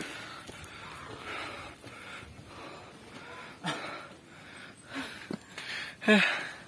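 Heavy breathing of hikers climbing a steep trail, with a few brief knocks and scuffs. A short loud voiced cry comes about six seconds in.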